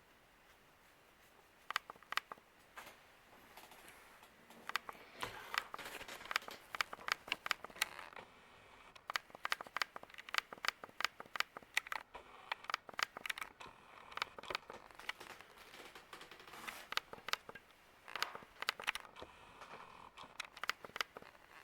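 Irregular clicking and crinkling handling noise, starting about a second and a half in and going on in uneven clusters.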